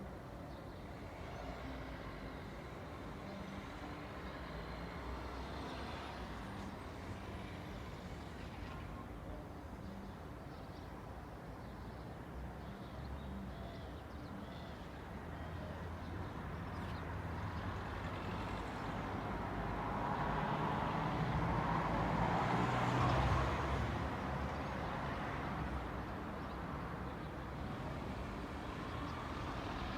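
Suburban street traffic with a steady engine hum; one vehicle approaches, passes close with the loudest moment about three quarters of the way through, and fades. A few faint high bird chirps sound in the first third.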